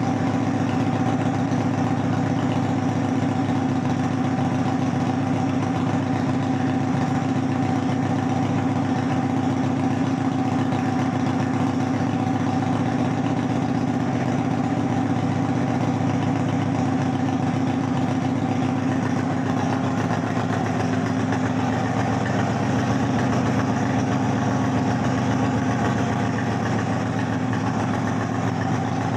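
Kasinski GTR 250 motorcycle's V-twin engine idling steadily, its exhaust rumbling loudly.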